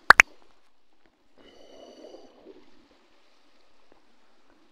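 Two sharp, loud clicks in quick succession, then faint rustling with a brief faint high tone about a second and a half in.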